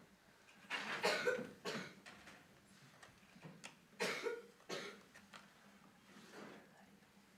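A person coughing in short bursts: a cluster about a second in, another around four seconds in, and a fainter one near the end.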